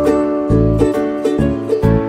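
Background music: a melody of short notes over a bass line.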